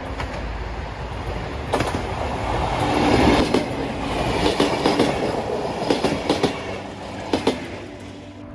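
Passenger train passing close by at speed: a rush of wheels and running gear that swells to a peak about three seconds in, with sharp clickety-clack of wheels over rail joints, often in pairs, then fading near the end as the last carriage goes by.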